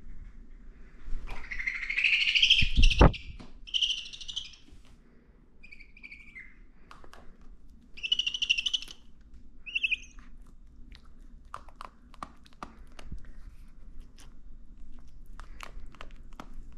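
A pet owl giving several short, buzzy calls, which the owner takes as a sign that he is hungry. There is a loud thump about three seconds in and a run of sharp clicks in the second half.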